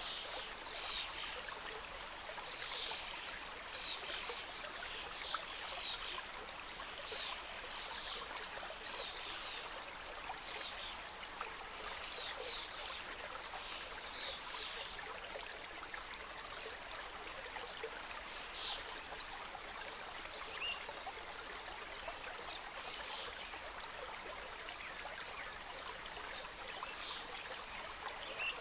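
Mountain stream flowing over rocks: a steady rush of water with many small, bright splashes and gurgles.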